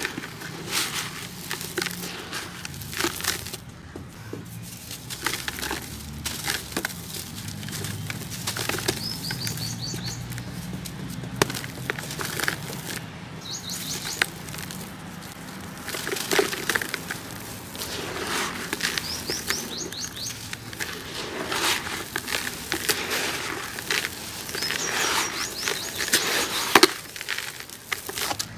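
Dry, gritty cement-sand chunks crumbled by hand, crunching and crackling as they break, with loose sand pouring and pattering into a bucket. The crumbling comes in louder spells every few seconds.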